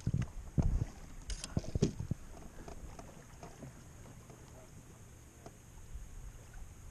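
A few sharp, irregular knocks and clicks aboard a plastic fishing kayak in the first two seconds, then a faint steady wash of water and wind.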